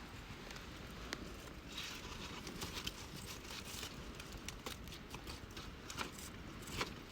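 Wood campfire crackling: irregular sharp snaps and pops over a low steady hiss, with a louder snap about a second in and another near the end.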